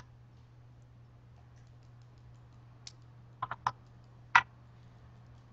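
About five short, sharp clicks: a faint one about three seconds in, a quick run of three half a second later, and the loudest a little after four seconds. A steady low hum runs underneath.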